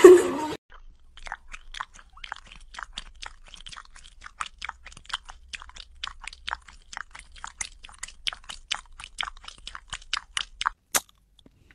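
Cat mouth sounds: a rapid, irregular run of small crunchy clicks, several a second, lasting about ten seconds.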